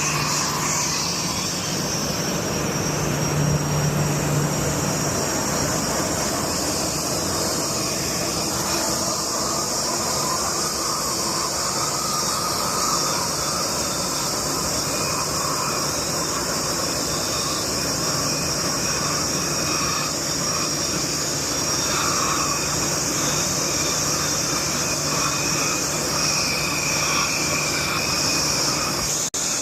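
Jet aircraft engine noise: a steady rushing roar with a low hum and a thin high whine held at a constant pitch, cutting out for a split second near the end.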